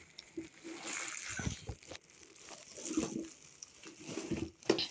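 Plastic wrapping crinkling and rustling in uneven crackles as silicone kitchen utensils are tugged out of their packaging.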